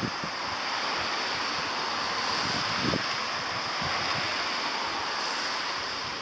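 Steady hiss of rain falling, swelling a little through the middle, with low gusts of wind buffeting the microphone.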